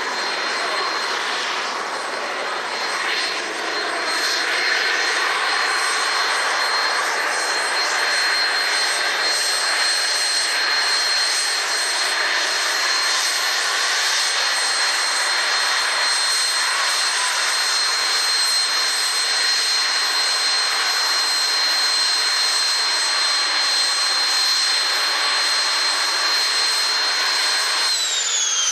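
Temco Super Pinto jet trainer's turbojet engine running at taxi power: a steady jet roar with a high whine on top. Near the end the whine starts to drop in pitch.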